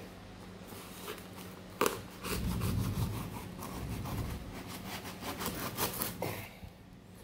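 Knife blade slicing through packing tape and cardboard along a parcel's seam, a scratchy sawing in quick strokes from about two seconds in to about six seconds in, with a sharp tap just before.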